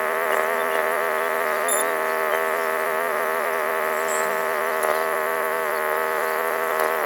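Royal Enfield Interceptor 650 parallel-twin engine through Red Rooster Performance aftermarket exhausts, running at a steady engine speed while riding. It is a steady drone whose pitch wavers only slightly.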